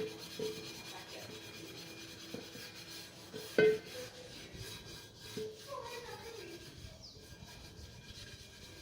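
Rubbing and scraping, with a few sharp knocks that ring briefly, the loudest about three and a half seconds in. A short squeak falls in pitch about six seconds in.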